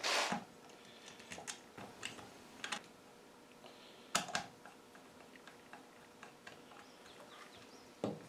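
Small clicks and taps of a screwdriver and metal parts while an ignition coil is being fitted to a chainsaw, with a brief rustle at the start and a sharper click about four seconds in.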